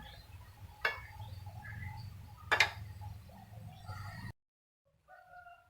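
Two sharp clinks of a utensil against a dish, nearly two seconds apart, over a low steady hum while noodles are served onto a plate. The sound cuts off abruptly near the end.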